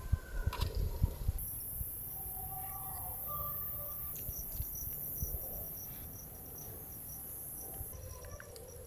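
Night insects, crickets, chirping: a very high, steady trill, with a second, evenly pulsing chirp joining about four seconds in. A few soft low knocks in the first second.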